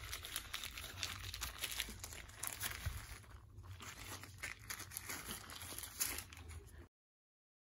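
Plastic of a foot mask crinkling and rustling as it is handled, with many small sharp crackles. It stops abruptly about seven seconds in.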